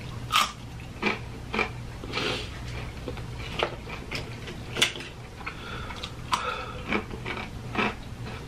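Close-miked eating of fried food: scattered crunches, chewing and wet mouth sounds with sharp clicks as the food is handled, over a steady low hum.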